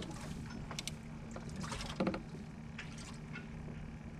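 Water lapping and splashing against a fishing boat's hull over a steady low hum, with one louder knock about two seconds in.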